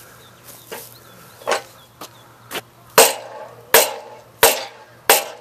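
Repeated hammer blows, each with a short ring. A few faint knocks come first, then strong, even strikes about one every 0.7 seconds from about three seconds in.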